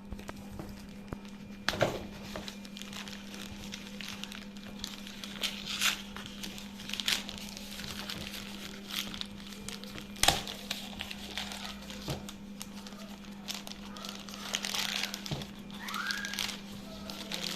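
Packaging being handled and unwrapped: irregular crinkling and rustling with scattered sharp crackles and taps, over a steady low hum.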